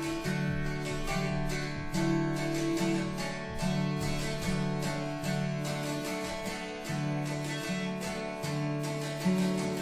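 Acoustic guitar strummed in a steady rhythm with other plucked string instruments, a small folk string group playing an instrumental tune.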